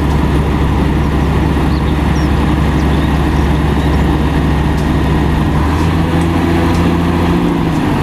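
Diesel engine of a concrete mixer truck running steadily, with a low even hum; its note shifts slightly near the end.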